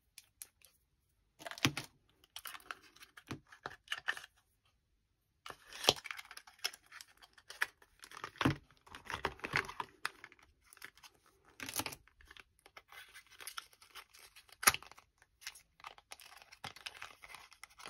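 Small cardboard gel-polish boxes being handled and opened: irregular rustling, scraping and tearing of packaging. Several sharp clicks and knocks come through it, with a short lull about a third of the way in.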